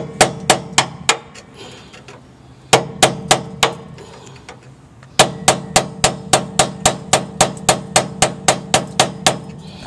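Hammer striking metal in three runs of quick blows: about five, then five more, then a longer run of about fifteen at three or four a second, each blow ringing briefly.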